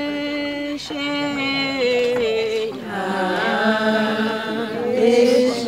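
Voices chanting a slow hymn in long held notes. The pitch steps from note to note and slides about three seconds in.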